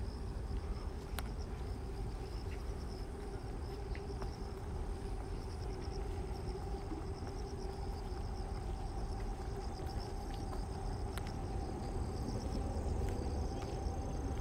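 Insects chirping in a steady, finely pulsing high chorus over a low outdoor rumble and a faint steady hum, with a few light clicks.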